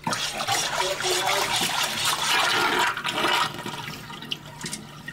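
A full stainless-steel kitchen sink draining fast, water rushing down the drain in a whirlpool; it starts suddenly, is loudest for the first three seconds or so, then eases. The drain runs freely, the sign that the clog in the stack has been cleared.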